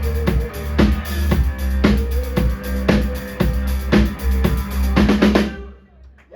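Live rock band's drum kit and bass playing a steady beat, about two drum hits a second over a held note, closing with a quick run of hits a little over five seconds in before the music stops.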